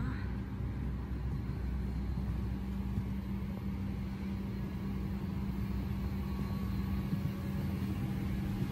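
Steady cabin hum inside a Boeing 737 on the ground: a constant low drone over an even low rumble.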